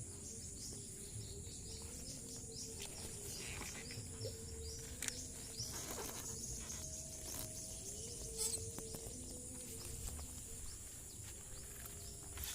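Insects trilling steadily in a high band, with scattered short bird chirps over it.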